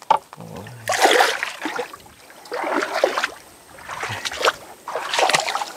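Splashing in shallow muddy water as a person wades and moves about: four or five separate splashy bursts about a second apart.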